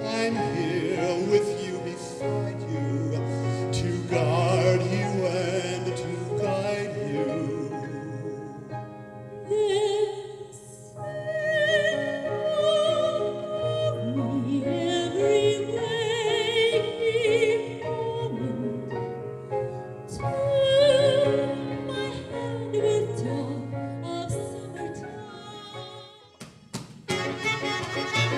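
Grand piano accompanying operatic singing: a man's voice at first, then from about ten seconds in a woman's soprano with strong vibrato. Near the end the music breaks off and a different number begins.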